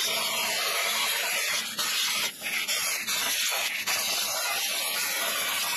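Primeweld Cut60 handheld plasma cutter with a drag tip cutting 12-gauge stainless steel sheet: a steady hiss of the arc and air jet, with a brief dip about two seconds in.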